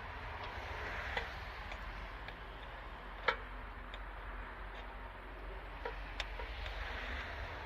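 A few sharp, light metallic clicks and taps over a low steady hum, as a chainsaw's bar, chain and bar nuts are handled while the bar is taken off.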